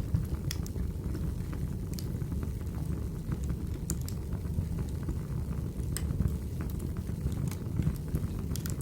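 Wood fire burning in a fireplace: a steady low rush of flame with sharp, irregular crackles and snaps from the burning logs.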